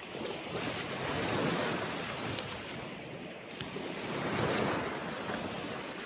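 Small waves washing onto a flat sandy shore. The wash swells twice, about a second and a half in and again past four seconds.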